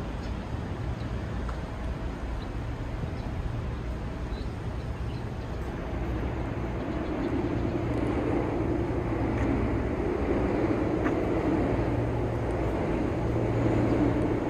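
Outdoor city ambience with a steady low engine drone that grows louder from about halfway through.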